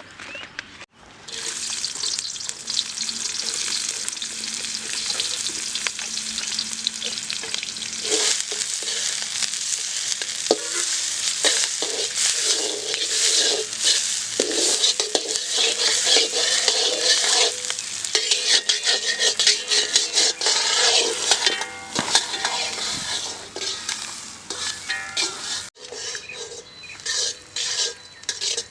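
Food sizzling in a hot pan while a spatula stirs and scrapes it, with many short scrapes over a steady frying hiss. There is a short break near the end.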